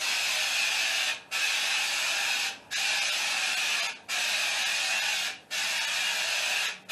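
Aerosol can of spray-on wall texture spraying in five hissing bursts, each about a second and a quarter long, with brief breaks between them as the nozzle is pressed again.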